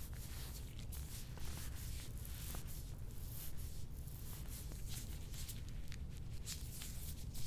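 Hands or a scraping tool rubbing over a patient's skin during soft-tissue work: a run of short, irregular scratchy strokes over a steady low hum.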